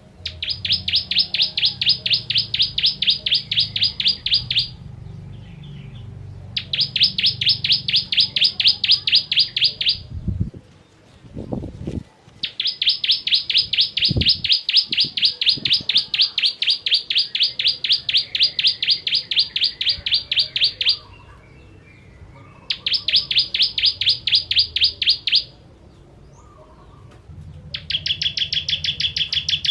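Ciblek kristal, a prinia, singing in long rapid trills of sharp, evenly repeated notes, several a second. The trills come in five bouts with short pauses, and the last bout near the end is lower and steadier in pitch. A few low thuds sound in the pause about a third of the way in.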